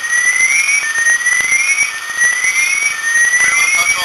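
Electronic alarm sounding a loud, shrill tone that sweeps upward over about a second and then restarts, over and over.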